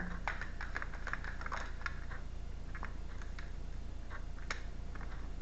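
Tarot cards being handled and shuffled by hand: scattered soft clicks and flicks of card against card, irregularly spaced.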